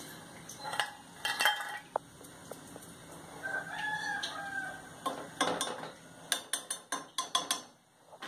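A rooster crows once in the background, just before the middle, a pitched call lasting about a second that rises and falls. In the second half come quick light knocks and clicks, like steel utensils and a steel bowl being handled.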